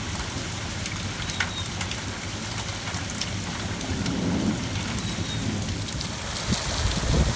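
Heavy rain pouring steadily in a severe storm, with strong wind, and close drops ticking and spattering now and then. A low rumble swells about four seconds in.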